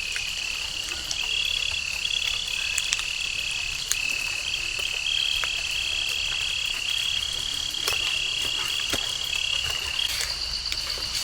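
Continuous chorus of high-pitched trilling from frogs and insects, the trill shifting between a few steady pitches, with scattered sharp ticks throughout.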